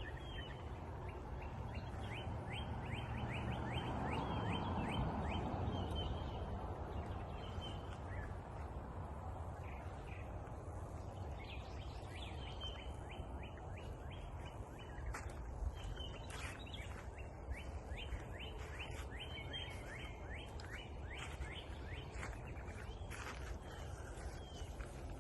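Small songbirds chirping in quick repeated series over a steady low background rumble; the rumble swells for a few seconds near the start.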